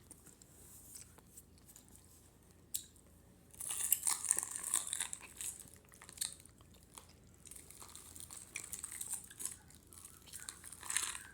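Someone chewing gummy candies close to the microphone: wet, smacking mouth noises that begin about three and a half seconds in and come in two stretches, after a single click.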